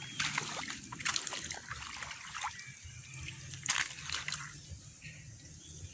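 Water sloshing and trickling in a shallow muddy puddle, with sharp irregular clicks and snaps about once a second.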